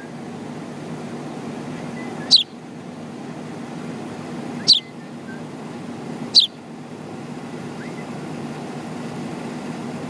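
Fledgling house sparrow chirping three times, each call a sharp, high note falling steeply in pitch, roughly two seconds apart, over a steady low hum of traffic.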